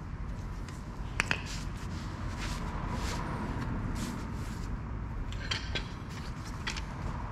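Metal hand tools being handled at a car's front brake: scattered light clicks and clinks, one sharp click about a second in, over a low steady hum.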